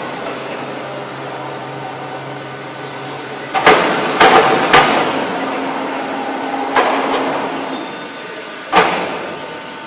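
CNC hydraulic press brake running with a steady machine hum, broken by sharp metallic clanks: three in quick succession about four seconds in, then two near seven seconds and one more near nine seconds.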